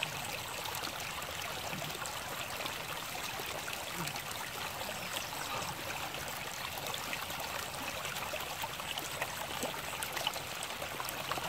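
A steady flow of water pouring and splashing into a shallow muddy pool, the water-flow line that feeds a bamboo fish trap.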